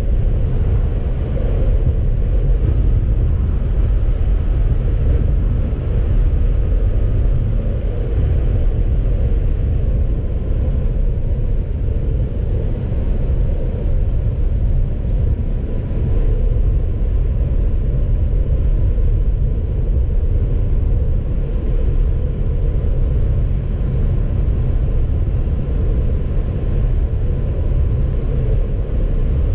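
Car driving: a steady low rumble of road and engine noise with no distinct events.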